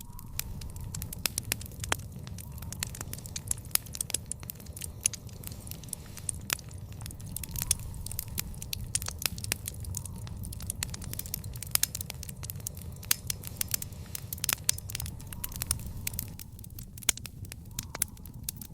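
Wood fire in an outdoor fire pit crackling, with many sharp, irregular pops over a steady low rumble.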